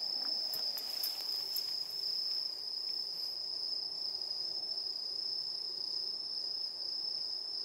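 Crickets singing: a steady, high-pitched, unbroken chirring that does not change.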